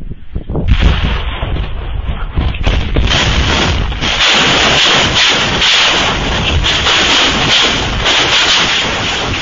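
Cluster-bomb submunitions going off: a few separate sharp bangs, then from about a second in a dense, continuous crackle of many small overlapping blasts.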